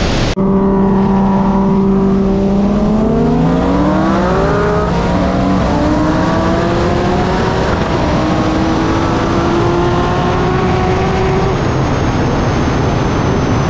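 Tuned car engine at full throttle over heavy wind noise: it holds a steady pitch for about three seconds, then climbs, drops at an upshift about five and a half seconds in, and climbs again. Near the end it fades as the throttle is lifted.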